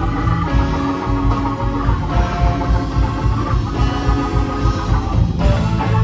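Live rock band playing: electric guitars and an organ-toned keyboard over bass and a steady drum beat.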